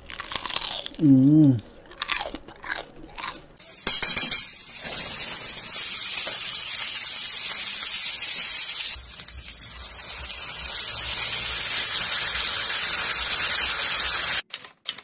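Crunching bites into crispy deep-fried pork skin for the first few seconds. Then meat sizzles loudly in hot oil, a steady hiss that dips partway through, builds again and cuts off sharply near the end.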